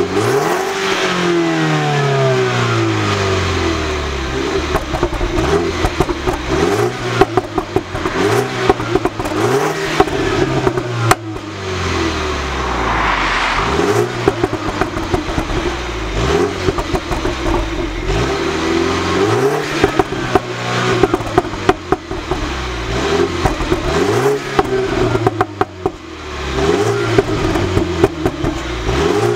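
2016 Mini Cooper S Clubman's turbocharged 2.0-litre four-cylinder engine revved repeatedly while parked, heard at the exhaust tailpipes. Each throttle blip sweeps the revs up and lets them fall away, about a dozen times, with sharp cracks from the exhaust scattered through.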